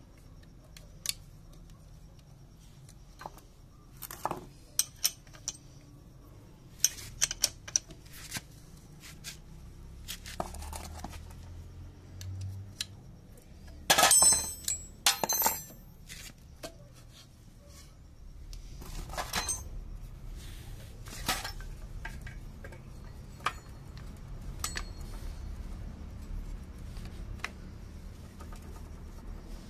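Metal tools and engine parts clinking and clattering as they are handled, in scattered sharp clicks with a louder cluster of ringing metal clinks about halfway through.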